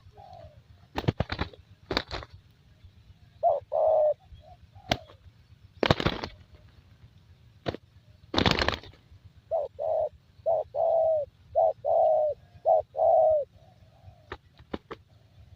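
Spotted dove (terkukur) cooing. A short group of coos comes a few seconds in, then a longer run of about seven coos later on. Sharp clicks and two brief noisy rustles fall between the coo phrases.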